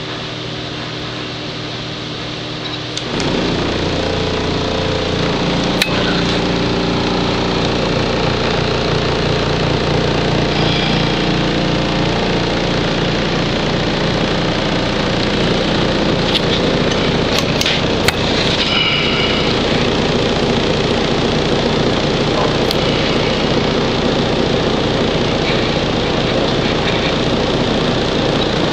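Wooden vibration table switching on about three seconds in and then running steadily with a loud mechanical noise, over a low steady hum; the noise drops away at the very end.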